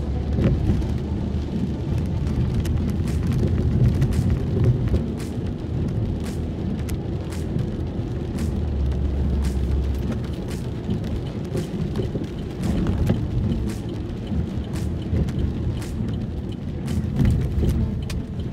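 Inside a moving car in heavy rain and strong wind: a steady low rumble of road and wind noise, with rain spattering on the windshield as the wipers run, heard as many short irregular ticks.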